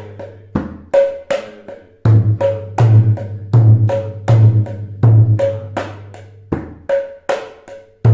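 Mridanga, the two-headed Bengali kirtan drum, played in a steady repeating pattern at medium speed, about 160 beats per minute. Sharp ringing strokes on the small treble head alternate with deep bass strokes on the large head, following the 'te re ghe na, de re ghe na' practice pattern.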